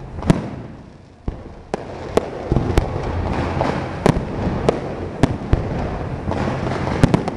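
Aerial fireworks display: a string of sharp booms from shells bursting overhead, about a dozen, irregularly spaced, with a steady rush of noise underneath from about two and a half seconds in.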